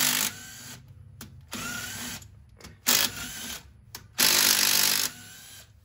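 A cordless power driver runs in about four short bursts as it backs out the 8 mm camshaft retainer bolts on an engine's cylinder head. The longest burst comes about four seconds in.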